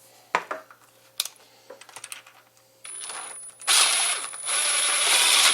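A few light clicks, then a power drill with a quick-change bit spins up about three seconds in with a steady high whine. About a second later it starts cutting, loud and rough, widening a hole in the switch panel, and stops near the end.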